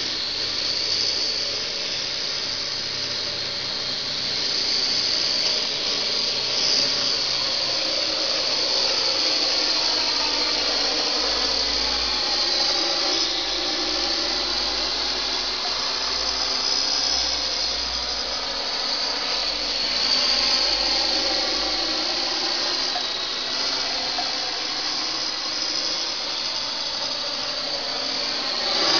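Parrot AR.Drone 2.0 quadcopter's electric motors and propellers whining in flight, the pitch wavering up and down as the throttle changes.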